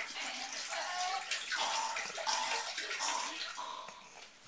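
A boy's mock retching and vomiting over a toilet, with liquid splashing into the bowl: gagging noises over a watery splashing that fades near the end.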